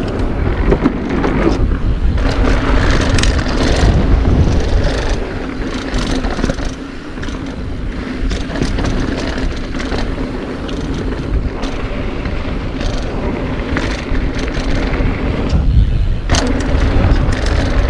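Mountain bike riding down a dirt trail: tyres rolling over dirt and rocks, with frequent rattles and knocks from the bike and a steady low buffeting of wind on the microphone. Around 16 seconds in the noise eases briefly, then picks up again.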